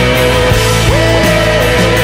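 Background music with a steady drum beat; a melody line steps up in pitch about a second in.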